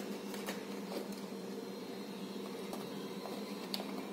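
A steady hum from a fan or appliance, with a few faint clicks and crunches as a knife cuts around the stem of a green capsicum (bell pepper) to lift out its top.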